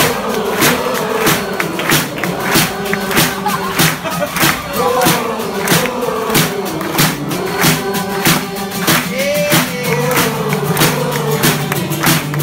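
Live acoustic rock band: several voices singing together with acoustic guitar over a steady beat of sharp hits about twice a second.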